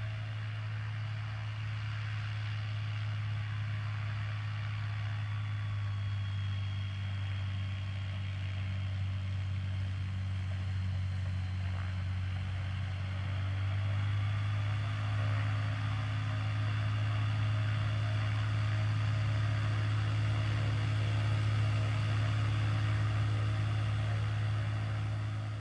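Ultralight aircraft's propeller engine running at low power as it taxis: a steady low drone that grows a little louder in the second half as the plane comes closer.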